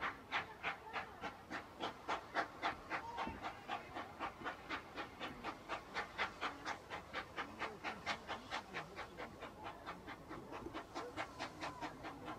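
Saddle-tank steam locomotive working along the line, its exhaust beats chuffing steadily at about four a second.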